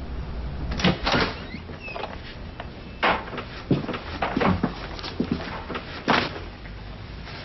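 A run of sharp knocks and clatters, roughly a second apart, of objects being picked up, handled and set down on a desk, over a low steady room hum.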